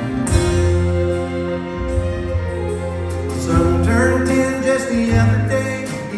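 Bluegrass band backed by an orchestra playing live: acoustic guitars, banjo, mandolin, fiddle and bass over long held notes, with a melody line moving higher from about three and a half seconds in.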